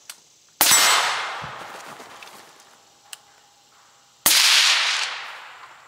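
Two suppressed rifle shots about three and a half seconds apart. Each is a sharp crack followed by a long echo dying away over a second or more.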